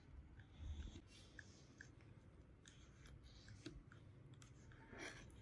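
Faint clicks and scrapes of a table knife cutting grass jelly into small pieces inside a paper cup, with a soft knock a little under a second in.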